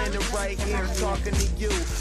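Background hip-hop music with a steady beat and a rapped vocal.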